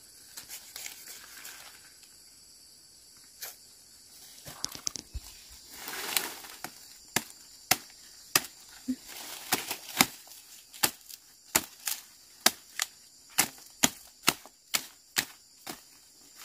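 Machete chopping at a bamboo stalk: a run of sharp knocks at about two strokes a second through the second half, after a few lighter knocks and a brief rustle of leaves.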